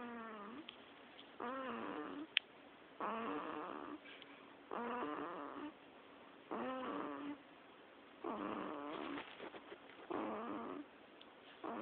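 Rhythmic snoring: about seven pitched snores, each under a second long, repeating roughly every 1.7 seconds with quiet breathing noise between.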